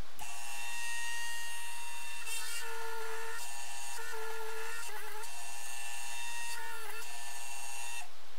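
Optimum mini lathe running with a steady, high gear-and-motor whine, starting with a click just after the start and cutting off near the end. A lower, wavering tone comes and goes a few times in the middle.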